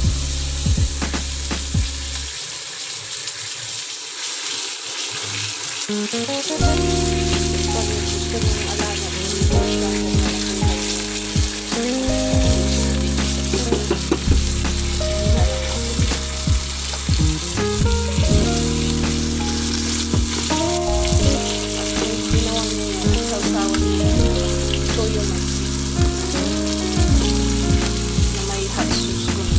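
Yellowfin tuna steak sizzling as it fries in butter in a nonstick pan, with scattered sharp clicks of tongs against the pan.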